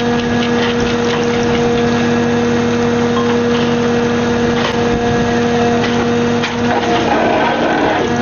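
Fishing boat's engine running steadily, a constant hum, with a few scattered knocks over it.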